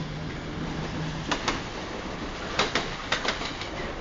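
Wheels of the Intercity 225 train rolling slowly past, clicking sharply in pairs on the track as each bogie's axles go by. A low steady hum dies away about a second in.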